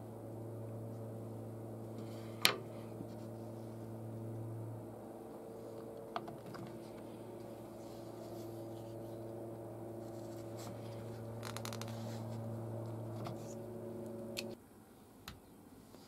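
Small wooden workpieces being handled and set down on a workbench, with a sharp knock about two and a half seconds in and lighter clicks later, over a steady machine hum that cuts off suddenly near the end.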